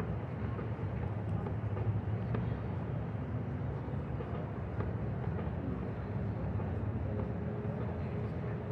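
Urban ambience: a steady low rumble of the city, even throughout, with no single sound standing out.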